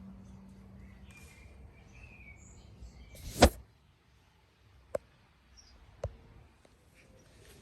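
A single loud thump about three and a half seconds in, followed by two sharp clicks about a second apart, over faint bird chirps.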